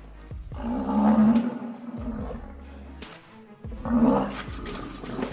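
Two loud, deep animal calls, the first about a second long starting about half a second in, the second shorter about four seconds in, over background music.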